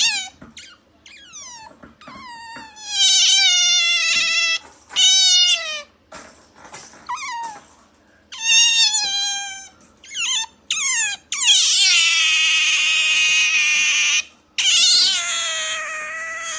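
Pet otter making high-pitched, cat-like whining calls: a run of cries that each slide down in pitch, some short and some drawn out, the longest lasting about three seconds a little past the middle.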